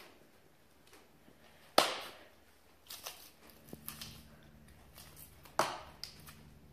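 Butcher knife working along the backbone of a hanging deer carcass, with a few sharp knocks and scrapes as the blade meets bone. The loudest knock is about two seconds in, with smaller ones after it.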